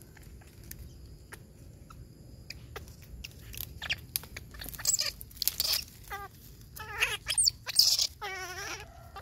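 Dry palm fronds crackling and rustling as they are brushed and pushed aside, over a steady high chirring of insects. Several short, warbling animal calls come in from about halfway through, the loudest near the end.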